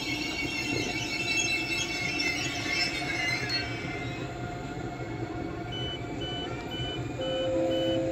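DB ICE 4 (class 412) high-speed train pulling out past the platform, its wheels squealing on the curved station track with several high screeching tones over a low rumble. The squeal fades out after about three and a half seconds. Near the end a high beep starts repeating, a little faster than twice a second.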